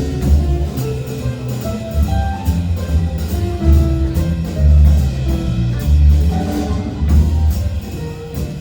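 A band playing an instrumental passage: a heavy bass line and drum kit, with held melody notes over them.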